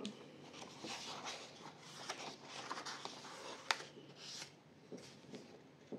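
Faint rustling of paper as a colouring book's page is handled, turned and smoothed flat by hand, with a few light clicks.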